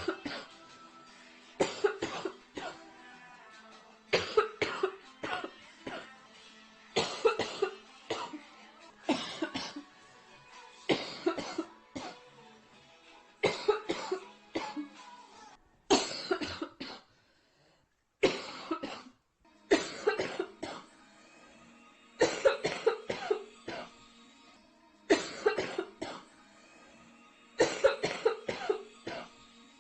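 A girl coughing nearly uncontrollably from a severe chest cold, in about a dozen fits of several coughs each, one every two to three seconds. Music plays faintly behind the coughing.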